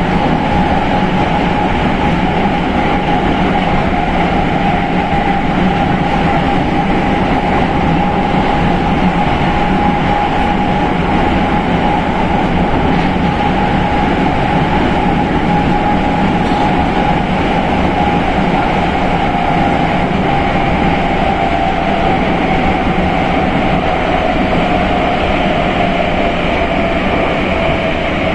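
Prague Metro Line B 81-71M train running at speed: a steady loud rumble of wheels on rail with a continuous whine that falls slightly in pitch near the end.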